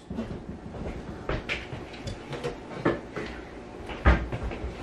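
A few scattered knocks and clunks of kitchen handling, with cupboard or refrigerator doors being opened and shut, the loudest about four seconds in.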